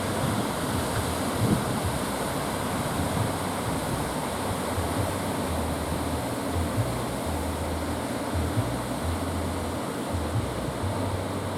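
Ocean surf breaking steadily, with strong wind blowing across the microphone in low, uneven gusts.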